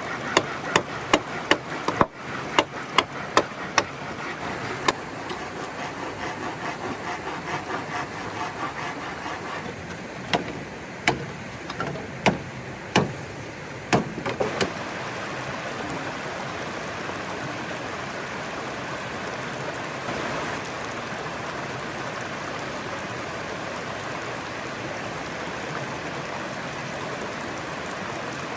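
Steady rush of flowing water from a stream or waterfall. A quick run of sharp knocks, about three a second, comes in the first four seconds, and a few more come about ten to fifteen seconds in.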